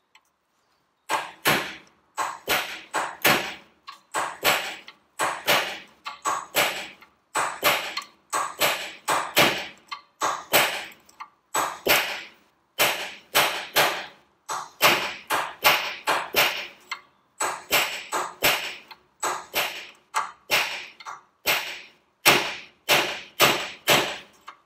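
A hammer striking a steel drift, tapping a lever along the Ferguson TED20's brake cross shaft. It is a long run of sharp metallic taps with a short ring, about two or three a second in groups with brief pauses.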